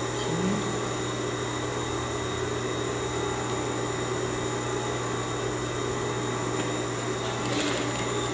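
Steady motor hum from an industrial sewing machine, with a short run of quick clicks near the end.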